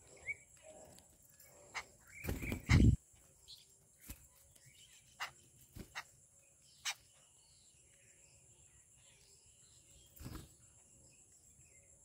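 Babblers and common mynas feeding on crumbs on a hard ledge: scattered sharp taps of beaks pecking and feet landing, with faint short chirps. A loud close thump about two and a half seconds in, and a softer one near the end.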